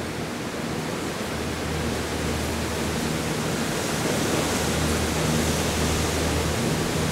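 Outdoor ambience: a steady, even hiss with a faint low hum beneath it, growing slightly louder.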